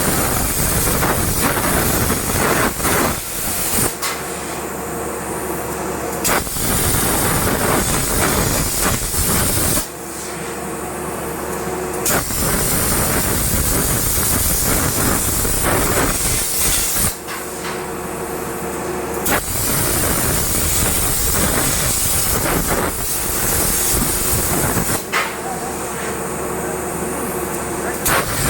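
CNC plasma torch cutting steel plate: a loud, steady hiss of the plasma arc and its gas jet, shifting in tone every few seconds as the cut goes on.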